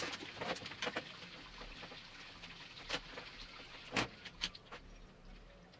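Light handling sounds of small metal tooling: several sharp clicks and taps as carbide inserts, their plastic case and a steel fly cutter body are picked up and set down on a steel bench, with a faint rustle in the first couple of seconds. The loudest taps come about three and four seconds in.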